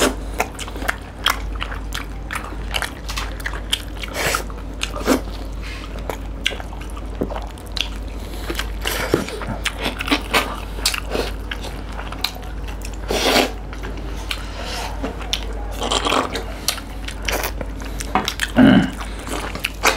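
Close-miked eating of fish curry, fried fish and rice by hand: wet chewing and biting with many small, irregular clicks, and a few louder mouthfuls.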